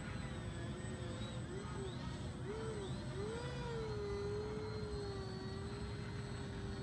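Electric brushless motors and twin propellers of a Banana Hobby V-22 Osprey RC tiltrotor (4S LiPo powered) whining in flight overhead. The pitch dips and rises several times in the first half, then holds steady.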